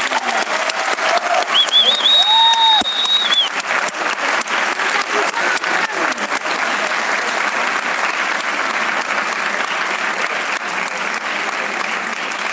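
Audience applauding, a dense steady clapping that eases off a little near the end. About two seconds in, a high held tone rises above the clapping for a second or two.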